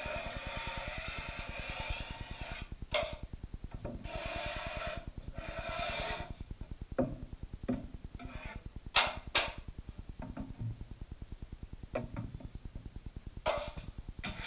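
Steel drywall taping knife scraping setting-type joint compound (hot mud) along a drywall joint in two long passes, with several sharp clicks of the knife against the metal mud pan as it is loaded and wiped.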